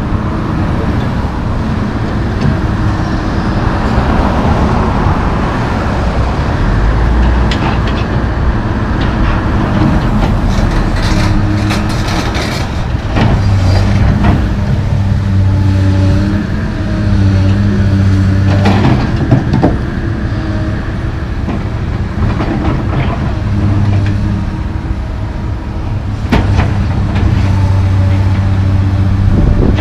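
Komatsu PC220LC track excavator's diesel engine running under load, its note rising and falling as it works, with cars driving past close by. Several sharp knocks come now and then, loudest in the middle.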